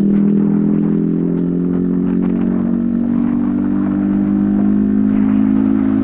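Yamaha XSR155's single-cylinder engine running under way through a homemade aftermarket exhaust, a steady note whose pitch climbs gently in the second half.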